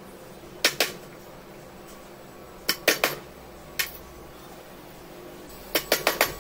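Wooden mallet striking a chisel's wooden handle, chopping a mortise in a small piece of wood: sharp knocks in short groups, two about a second in, a quick run of four around three seconds, one more a little later, and several quick knocks near the end.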